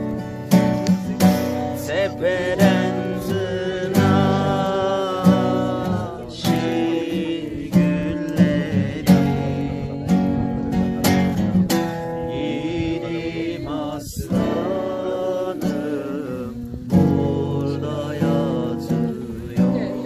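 Steel-string acoustic guitar strummed in a steady rhythm, with voices singing a song along with it.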